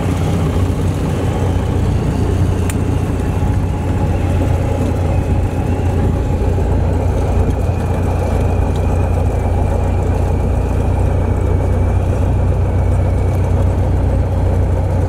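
Piper PA-28 Cherokee's piston engine and propeller running at a steady, even pitch, heard from inside the small aircraft's cabin while it moves along the runway.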